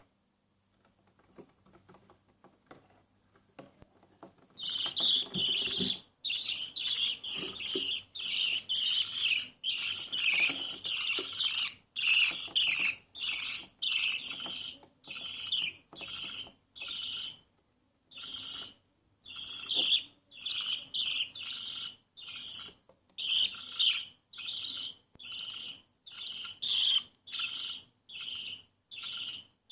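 Budgerigar chick giving raspy, high-pitched begging calls during hand-feeding, in a steady run of short bursts about one to two a second. The calls start about four seconds in, after near quiet with a few faint clicks.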